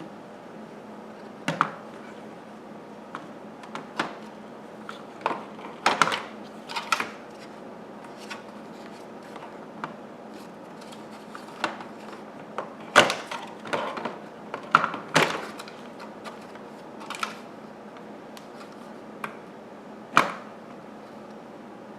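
Vacuum parts and packaging being handled: irregular clicks, knocks and rattles as pieces are picked up and set down, spaced unevenly, over a faint steady hiss.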